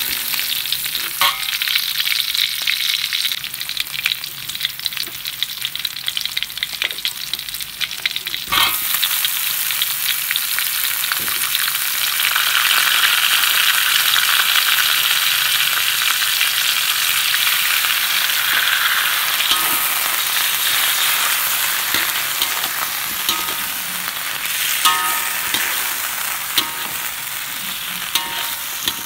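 Hot oil sizzling in a pan as sliced onion, garlic, broccoli and carrot are stir-fried, with scattered clicks and scrapes of stirring against the metal. About eight and a half seconds in, a sharp knock is followed by a louder, fuller sizzle that eases slightly near the end.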